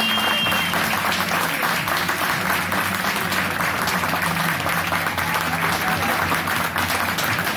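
Audience applauding steadily, a dense patter of many hands clapping. In the first second the last held note of the tango recording dies away under the clapping.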